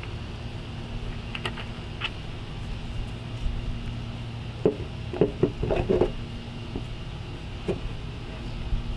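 Plastic paddle board center fin clicking and knocking against the board's fin box as it is set into the slot. A couple of light clicks come first, then a quick cluster of knocks about halfway through, and one more click near the end.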